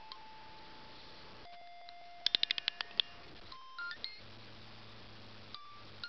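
Music box playing a slow, sparse melody of clean ringing notes over a steady hiss, with a quick run of about seven high notes a little over two seconds in.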